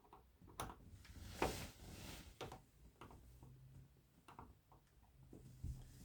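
Faint scattered clicks and scrapes of a flathead screwdriver tip working against an old doorknob's metal shank, trying to depress the knob's retaining latch so the knob can be pulled off; the loudest scrape is about a second and a half in. A faint low hum starts about three seconds in.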